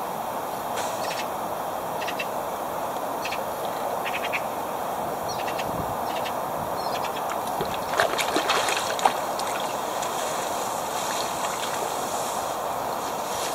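River water flowing with a steady rush, with a brief cluster of sharp clicks and knocks about eight seconds in.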